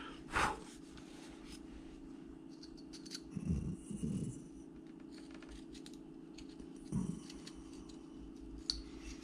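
Carving knife shaving and scraping small wooden workpiece in short strokes, with a few soft knocks of handling, over a steady low hum.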